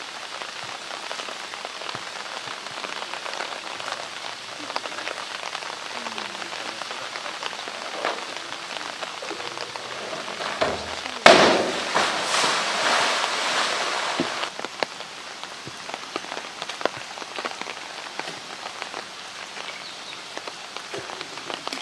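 A polar bear plunging into its pool: a sudden loud splash about eleven seconds in, then water churning for about three seconds. Under it runs a steady hiss of water, with a few light scattered knocks.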